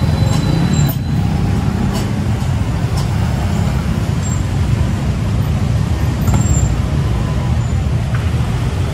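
Road traffic close by: vehicle engines running in a steady low rumble, with a few faint clicks on top.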